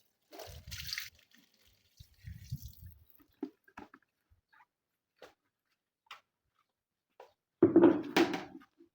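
Water splashing and dripping in short, separate bursts, with a few small clicks between them. The loudest splash comes near the end.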